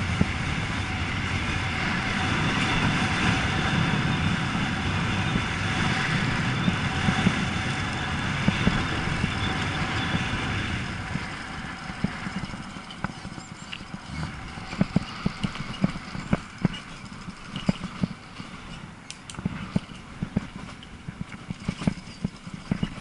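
Riding noise from a camera on a moving e-bike: a steady rush of wind and tyres, which falls away about halfway through, leaving irregular clicks and rattles from the bike and mount over the road.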